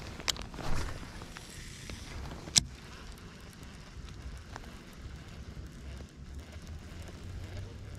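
Two sharp clicks about two seconds apart, the second the louder, with a short rush of noise just after the first, over a steady low rumble.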